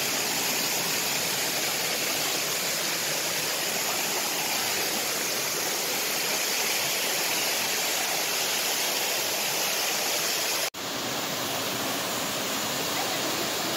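Steady rushing of a small waterfall spilling over granite slabs into a rock pool. The sound drops out for an instant about eleven seconds in, then carries on unchanged.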